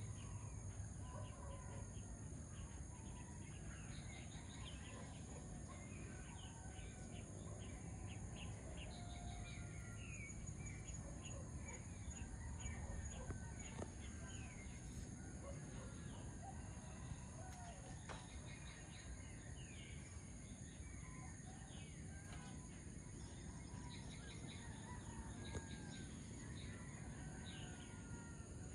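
Dawn chorus: many birds chirping and whistling short calls, overlapping throughout, over a steady high-pitched whine and a low background rumble.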